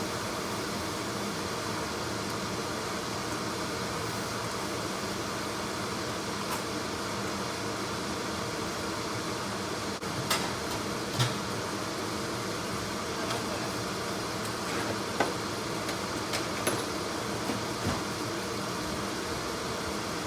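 Minced garlic sizzling steadily in hot oil in a wok, with a few sharp clicks of a spatula or utensil on the wok in the second half.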